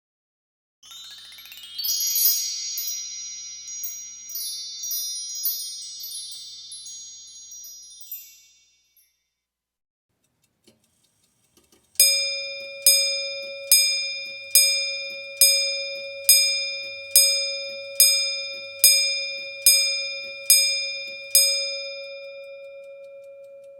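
Two cartoon sound effects: first a rising, shimmering run of chime-like tones that fades out over several seconds, then a clock bell striking twelve times, a little under a second apart, the last stroke left ringing.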